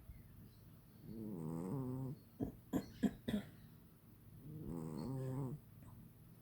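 A sleeping cat snoring: two drawn-out, wavering snore breaths about three and a half seconds apart. Between them comes a quick run of four or five sharp clicks or snuffles, the loudest sounds here.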